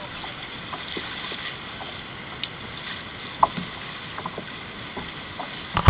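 Kayak paddling on a river: small splashes and drips from paddle blades over a steady hiss of moving water. A sudden loud burst cuts in at the very end.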